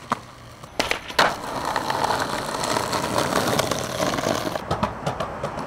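Skateboard on concrete: two sharp clacks of the board about a second in, then the wheels rolling steadily over the pavement, with a few more clacks near the end.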